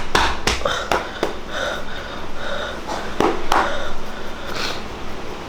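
A person's non-speech vocal sounds: a series of short, sharp breaths and noises, several of them spread across a few seconds.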